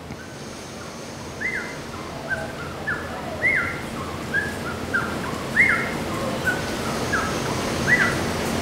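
An animal calling over and over: about a dozen short, high calls, each rising then falling, spaced roughly half a second to a second apart, over a steady background hiss.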